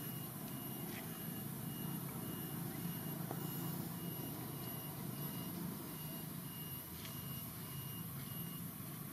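A steady low motor hum, like an engine running nearby, with a faint high tone pulsing on and off above it.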